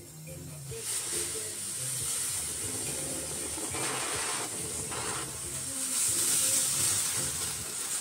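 Ground fountain firework spraying sparks with a steady hiss. The hiss starts about a second in and grows louder toward the end, with two short, fuller rushes near the middle.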